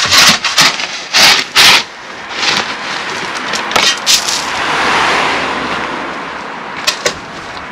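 A steel spade digging into scalpings (fine crushed stone) in a bulk bag: several sharp scrapes and crunches in the first two seconds, then a longer rushing sound of loose stone that swells and fades, with a couple of clicks near the end.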